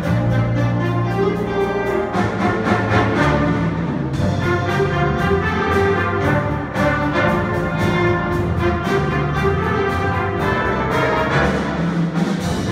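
A school jazz big band plays a full-ensemble passage: saxophones, trombones and trumpets over piano and a drum kit, with steady cymbal and drum strokes keeping time.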